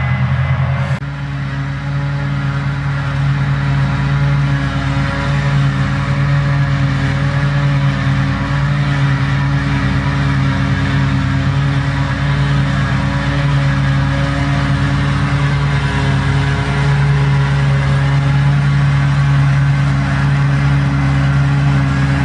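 New Holland FR650 forage harvester chopping grass under steady load, a loud, even engine drone, with the Massey Ferguson tractor pulling the trailer alongside. The sound changes abruptly about a second in.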